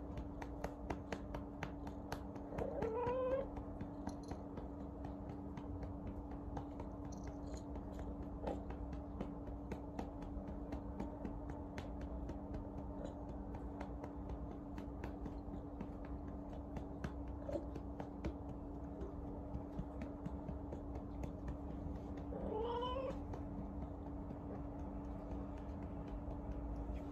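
A domestic cat meows twice, a short call rising in pitch about three seconds in and another near the end, over a steady low hum and faint soft clicks.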